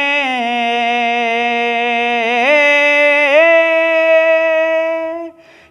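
A man's unaccompanied voice holding one long sung note of a noha, a Shia lament. The note steps up in pitch twice, about two and a half and three and a half seconds in, then breaks off shortly before five and a half seconds.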